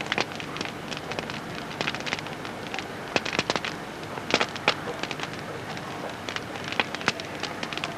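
Campfire crackling, with irregular pops and snaps over a steady hiss.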